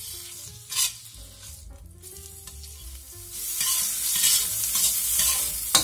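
Slices of salt pork sizzling in oil in a wok while a spatula stirs and scrapes them around the pan. The sizzle grows much louder about three seconds in as the meat fries.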